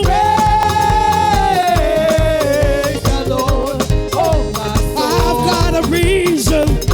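Upbeat African-style praise dance music with a steady low beat. A long held melody note starts at the opening and slides down, and a second phrase follows about five seconds in.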